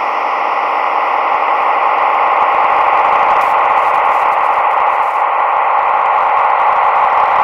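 Eurorack modular synthesizer patch pinging a Make Noise QPAS filter. It gives a steady, dense, hiss-like band of filtered noise centred in the mid range, swelling slightly in volume over the first couple of seconds.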